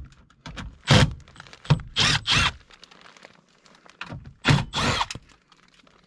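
A few short scrapes and thunks of hands working at the sheet-metal cabinet of an air handler, in a small enclosed space.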